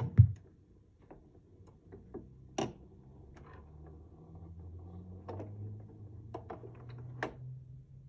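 Audio-Technica turntable's end-of-side return: a loud low thump as the stylus lifts off the record, then a series of sharp mechanical clicks and a low hum as the tonearm swings back to its rest.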